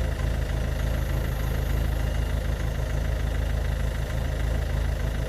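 Ford Focus Mk2 1.6 TDCi four-cylinder turbodiesel engine idling roughly, with an uneven low pulsing: the rough idle that goes with its white-smoke problem.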